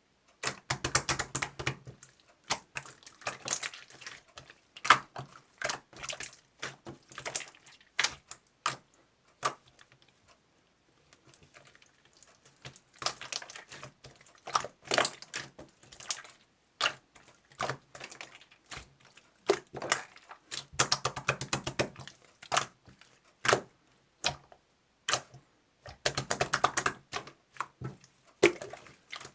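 Runs of rapid light clicks and taps coming in bursts, with short pauses and a longer quiet gap about ten seconds in.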